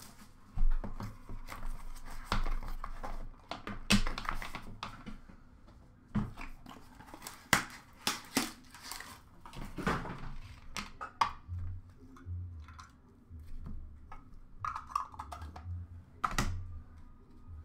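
Hands handling a plastic-and-cardboard hockey card box and cards over a plastic bin: irregular clicks, knocks and rustling.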